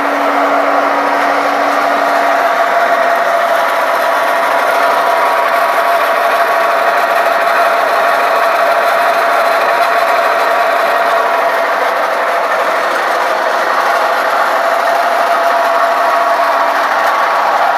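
MGL-400 pellet press (15 kW) running steadily while pressing fir sawdust into pellets: a loud, even machine noise with a constant whine, a lower hum fading out about two seconds in.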